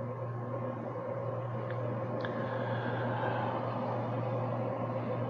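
Steady low hum with an even hiss of background noise, and two faint clicks about two seconds in.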